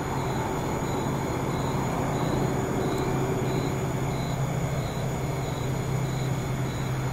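Steady low rumble, like distant traffic or a train, with faint short high-pitched pulses about twice a second.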